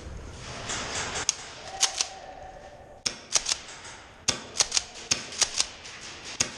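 Airsoft guns firing in an indoor arena: about a dozen sharp snaps at irregular intervals, some single and some in quick pairs.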